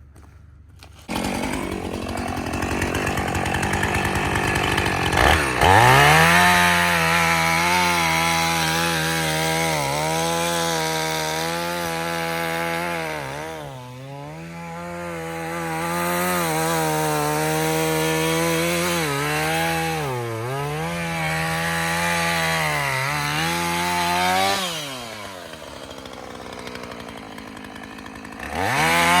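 Husqvarna Rancher 450 two-stroke gas chainsaw. It starts about a second in, runs at low speed, then revs to full throttle at about five seconds. Its pitch sags and recovers several times as the chain bites into the wood, which fits cutting a girdling ring around a tree trunk. Near the end it drops back to a low speed, then revs up again.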